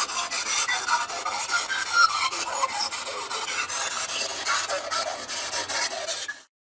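Continuous scratchy rubbing and rustling noise, close to the microphone, that cuts off suddenly near the end.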